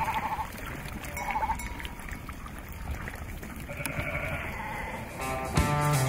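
Sheep bleating: a few short calls from a flock, one right at the start, one about a second in and a longer one around four seconds in.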